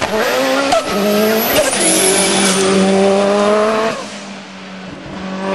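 Lancia Delta Integrale race car's engine at high revs as it passes and pulls away uphill, with a brief break for a gear change about a second and a half in. About four seconds in the sound drops away as the car gets further off, then swells a little again near the end.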